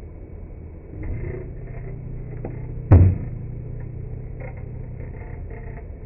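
Microwave oven running with light bulbs inside, played back slowed down: a low hum with scattered crackling, and one sharp bang about three seconds in as a bulb bursts.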